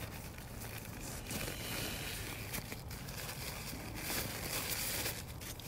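Paper towel rustling and crinkling as grease is wiped off a timing belt pulley, with scattered small ticks and a faint steady low hum underneath.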